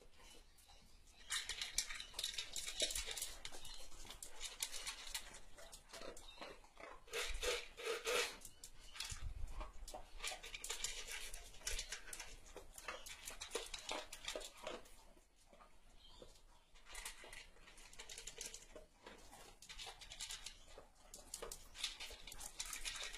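A dog eating out of a plastic slow-feeder bowl: a run of quick, irregular clicks and rattles as food knocks against the bowl's ridges and the bowl shifts on a tile floor, mixed with chewing and licking.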